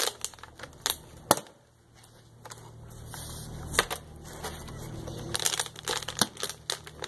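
A plastic water bottle crinkling as it is handled and knocking down onto concrete after flips: a few sharp knocks, the loudest about a second and a half in, another near four seconds, and several more near the end.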